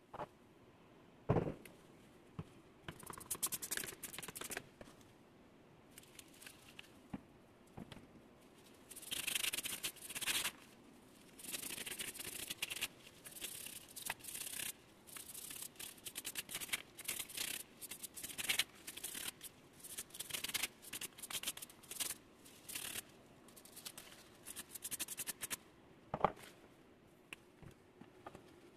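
A brush scrubbing an aluminium plug in short bursts of scratchy strokes. A knock comes about a second in and another near the end.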